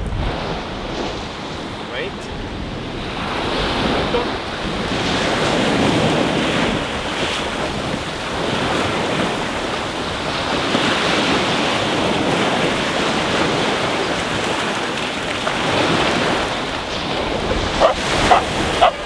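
Sea waves washing in and out, swelling and easing every few seconds, with wind buffeting the microphone. A dog barks a few times near the end.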